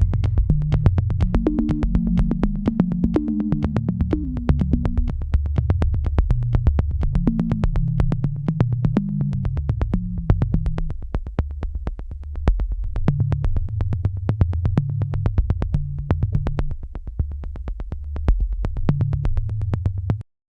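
Background electronic music: a synthesizer bass line under a steady, fast ticking beat, cutting off abruptly at the very end.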